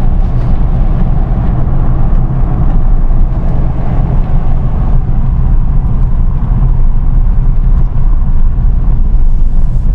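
A motor vehicle on the move: a loud, steady low rumble of engine and road noise.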